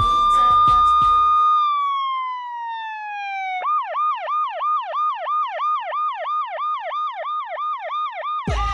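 Electronic emergency-vehicle siren. It holds a high wail, then slides down over about two seconds, and about three and a half seconds in it switches to a fast yelp of three or four rises a second. Music with a heavy bass beat plays under it at first and drops out about a second and a half in.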